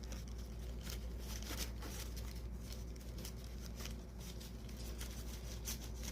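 Light rustling, crinkling and small scattered clicks of a phone box's packaging being handled as the accessories are taken out, over a steady low hum.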